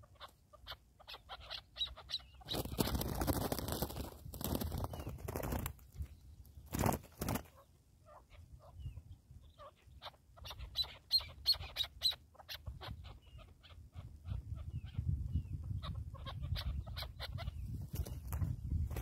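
Chukar partridges calling in rapid runs of short, sharp clucking notes, with stretches of rustling noise at about 3 to 5 seconds in and again in the last few seconds.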